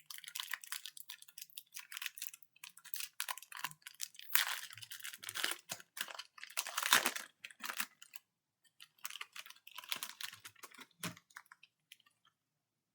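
Trading-card pack wrapper being torn open and crinkled, in irregular crackling bursts that stop near the end.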